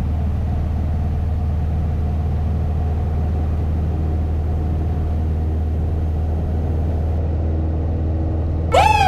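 Single-engine piston aircraft engine running steadily at full take-off power, heard from inside the cabin as an even drone. Electronic music cuts in suddenly near the end.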